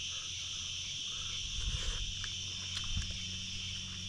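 Steady high-pitched insect chorus, with a low steady hum beneath it and a few faint knocks.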